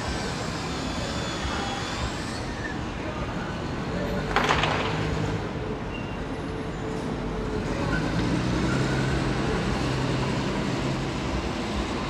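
City street traffic: a steady wash of passing cars, trucks and buses. About four seconds in there is a short, loud hiss, and a heavier engine rumble swells in the second half.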